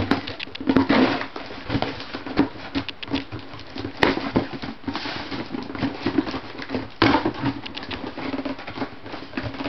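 Scissors slicing and scraping along the packing tape of a cardboard mailing box, with the cardboard rustling and scratching under the hands, and sharp clicks about four and seven seconds in.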